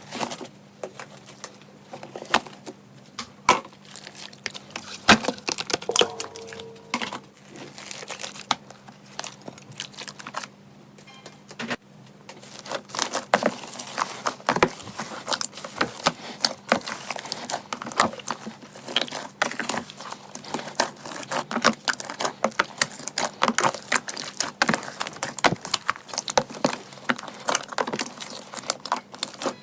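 Crunchy slime being squeezed and poked by hand: dense, irregular crackling and clicking as the crunchy slime pops and breaks, busier in the second half.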